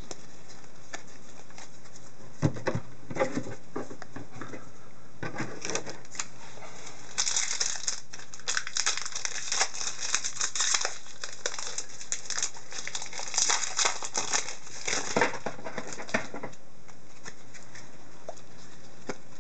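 Plastic wrapper of an Upper Deck hockey card pack crinkling in the hands as it is opened, with the cards rustling and sliding against each other as they are shuffled. The crackling comes in irregular spurts and is thickest in the middle.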